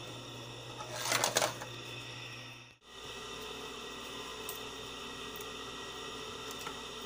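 Brief rattling and scraping of a plastic speaker housing being handled on a workbench about a second in, then, after an abrupt cut, a steady background hum and hiss with a few faint ticks.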